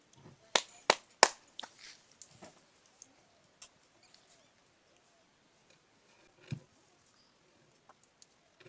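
Three sharp clicks in quick succession about half a second in, then a smaller click and faint scattered ticks. They come from the action of a homemade muzzle-loading gun being worked, with no shot going off.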